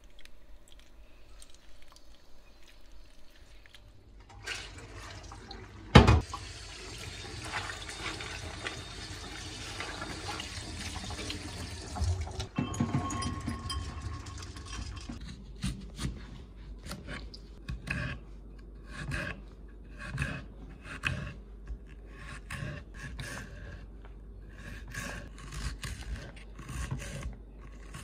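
Tap water running into a stainless-steel sink for several seconds as beans are rinsed, with a single sharp clank about six seconds in. Then a knife cuts through an onion on a wooden chopping board in a steady run of short strokes, about one or two a second.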